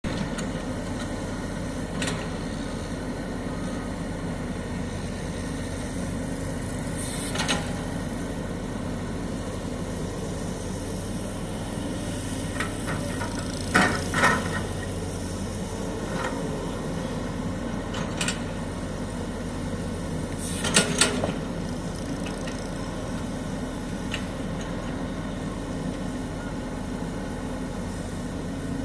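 Sany excavator's diesel engine running steadily, with a few short, sharp knocks at scattered moments, the loudest a pair about halfway through and another pair about three-quarters of the way in.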